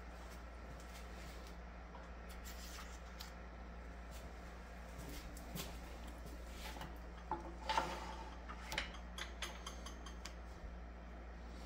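Small clicks and taps of wood and metal as pen blanks and bushings are fitted onto a wood lathe's pen mandrel and the tailstock is brought up, with the loudest cluster about eight seconds in, over a low steady hum.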